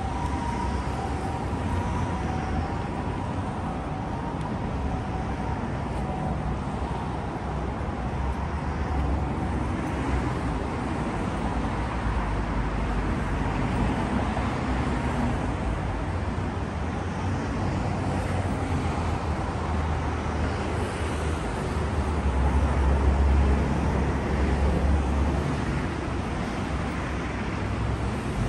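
City street traffic noise: a steady hum of passing cars with a low rumble that grows louder about three-quarters of the way through as a heavier vehicle goes by. A siren's two steady tones fade out in the first few seconds.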